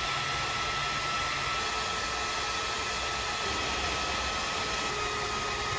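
Cordless heat gun running steadily, its fan blowing hot air with a faint high whine over the rush, shrinking heat-shrink tubing onto a PVC pipe.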